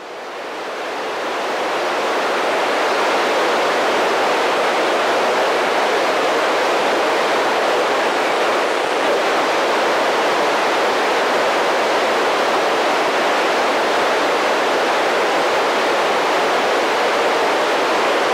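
Steady hiss of FM static from a handheld ham radio receiver with its squelch open, tuned to the SO-50 satellite downlink with no voice coming through. It fades up over the first couple of seconds.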